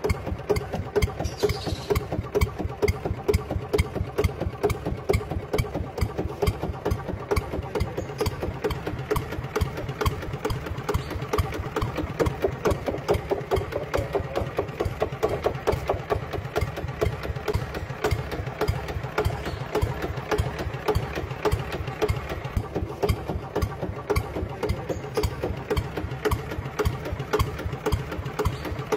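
Engine idling steadily with an even, rapid chugging beat.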